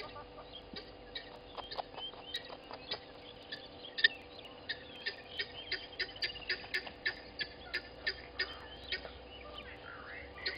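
Birds chirping, with a run of sharp, evenly spaced clicks at about three a second starting about halfway through, and one louder click shortly before.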